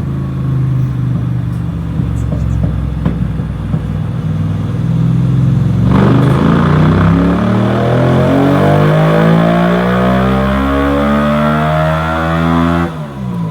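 Yamaha R7 motorcycle engine idling steadily, then about six seconds in the revs jump up and keep climbing steadily for several seconds before the throttle is shut near the end and the engine drops back to idle.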